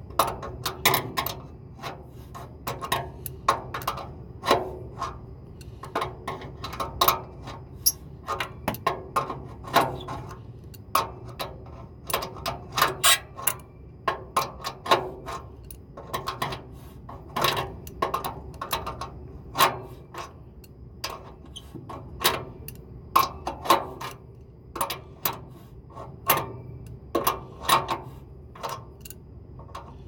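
Adjustable wrench clicking and clinking against a nut and threaded bolt on a blower motor bracket as it is turned a little at a time and refitted, setting tension on the blower belts. The metal clicks come irregularly, about two or three a second, over a steady low hum.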